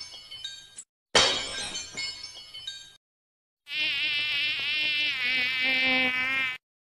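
Glass shattering sound effect: a crash with high tinkling shards, repeated once about a second in and fading out by about three seconds in. After a short silence, a housefly buzzes for about three seconds, its pitch wavering, and cuts off suddenly.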